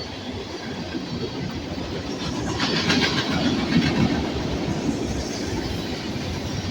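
BNSF freight train cars rolling past, wheels clattering over the rail joints, swelling louder about two and a half seconds in.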